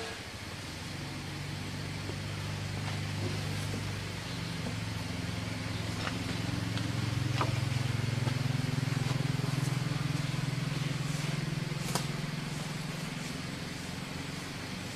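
Asian bull elephant giving a long, low rumbling call that swells louder in the middle and eases off near the end; it is the elephant's call for its keeper.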